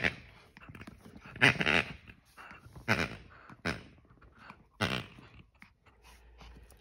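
Pomeranian puppy growling in play while biting and tugging a rubber pig toy, in about four short bursts, the longest about a second and a half in.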